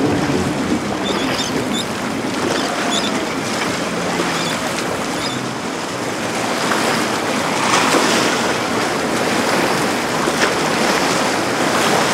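Steady rush of water and wind at an ocean inlet, with wind buffeting the microphone; it swells a little about two-thirds of the way through.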